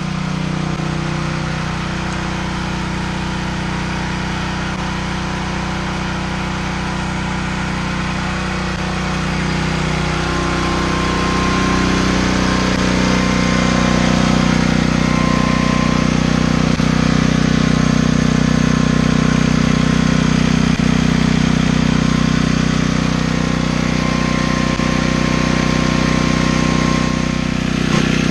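Dayton portable generator's engine running steadily, growing louder from about halfway through as the microphone comes close to it. It is burning off a small amount of old gas that has sat in the tank a long time.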